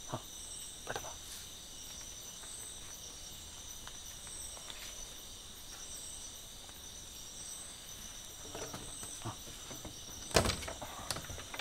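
Night insects, crickets, chirring steadily, with a short trill repeating every second or two. Near the end there is a single sharp clack from the window being opened, with a few softer clicks just before it.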